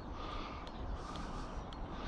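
Wind buffeting the microphone beside a lake, with faint bird calls and faint ticks about twice a second.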